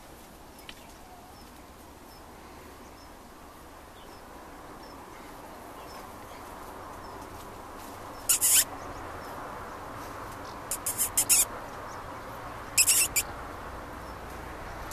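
A ferret digging in a tub of loose potting soil: a soft steady rustle, broken by three loud, brief scrabbling flurries of claws in the soil about eight, eleven and thirteen seconds in, the middle one a quick run of several strokes.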